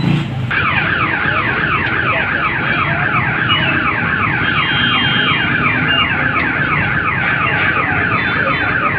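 Motor-driven screw mixer turning in a pot of boiling jaggery, giving a high falling squeal about three times a second over a low motor hum.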